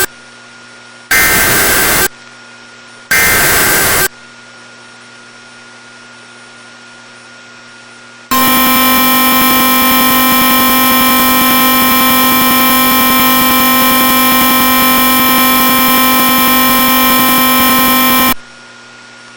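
Emergency Alert System signal on NOAA Weather Radio. It opens with two short bursts of static-like digital SAME header data, about a second each and a second apart. After a few seconds of faint hiss comes a loud, steady, buzzy alarm tone held for about ten seconds.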